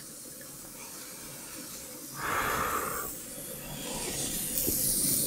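Hot doenjang jjigae broth sipped from a spoon: a short, breathy slurp about two seconds in, then a softer hiss near the end.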